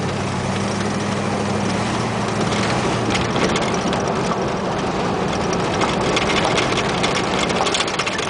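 Cadillac 472 big-block V8 running while the car drives, heard from inside the cabin. A steady engine hum for the first few seconds gives way to tyre and road noise with a patter of light clicks and rattles.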